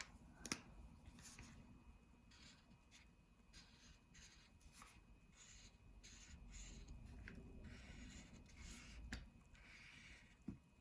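Faint, irregular scratching of colouring strokes on paper.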